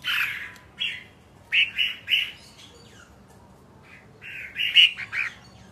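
A bird giving a run of short, harsh squawking calls, one group of about five, a pause of over a second, then another group of about four.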